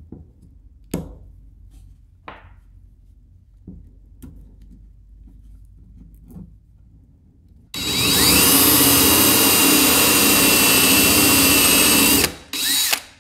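Cordless drill boring into a cast resin lure body to make holes for lead ballast weights. It spins up and runs steadily for about four and a half seconds, then gives a short second burst near the end. Before it come a few light clicks and taps as the lead weights are handled.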